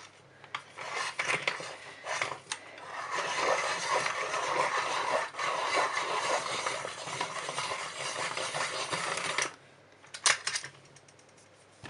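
Caran d'Ache Luminance coloured pencil being sharpened: a few clicks of handling, then several seconds of continuous scraping that stops abruptly, followed by a couple of clicks.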